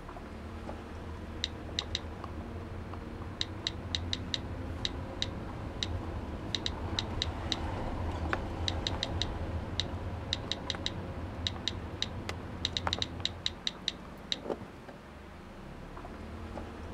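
Quick clusters of sharp taps and clicks from a smartphone keyboard as a text is typed, over the low steady hum of a car cabin. The clicks stop and the hum fades a couple of seconds before the end.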